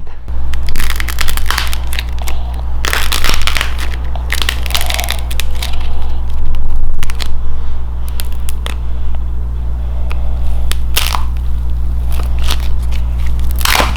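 Hand-shaped ball of dried air-dry clay being crushed by hand, crackling and crunching in several short bursts. Each burst stops quickly rather than ringing on.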